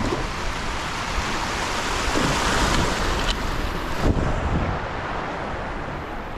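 Creek water rushing over a shallow riffle as a kayak runs through it, loudest about halfway through, with a few low thumps.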